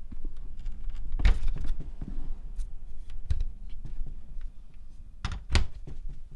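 Irregular clicks and knocks over a low rumble: a strong knock a little over a second in, another after about three seconds, and two close together near the end, with small ticks between.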